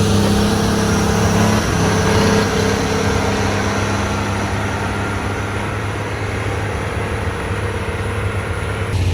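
Heavy diesel engine of a motor grader running steadily, its hum easing slightly after about two seconds.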